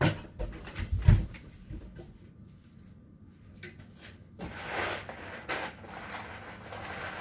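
Two heavy thumps in the first second or so, then quieter knocks and a few seconds of rummaging and rustling from about halfway through: someone searching through a kitchen cupboard off to one side.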